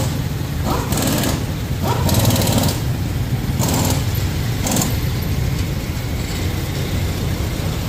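Steady low rumble of a running vehicle engine, with several short bursts of hissing noise in the first half.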